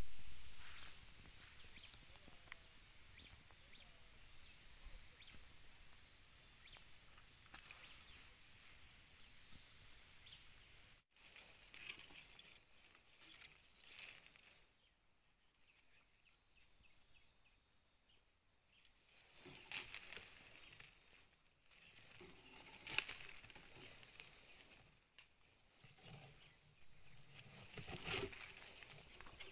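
Faint, steady high-pitched chirring of insects, which breaks off abruptly about eleven seconds in and later returns more weakly. A few brief rustles stand out in the second half, the loudest near the end.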